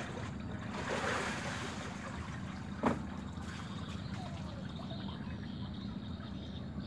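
Low, steady rumble of wind on the microphone over river water lapping at the bank, with one sharp click about three seconds in.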